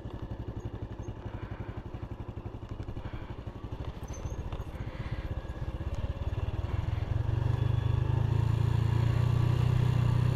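Motorbike engine running with a fast, even pulse as the bike rides down a hill, turning louder and steadier about two-thirds of the way through.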